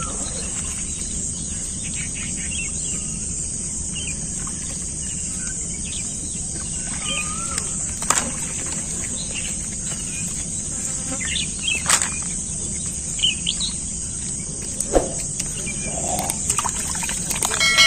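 Outdoor ambience with birds chirping now and then over a steady high hiss. A few sharp taps or clicks stand out.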